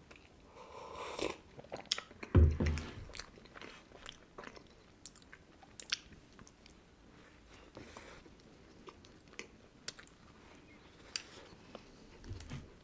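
Close-up mouth sounds of biting into and chewing a crisp shortbread sandwich cookie filled with boiled condensed milk, with many small crunchy clicks. About two and a half seconds in there is a single low thump, the loudest sound.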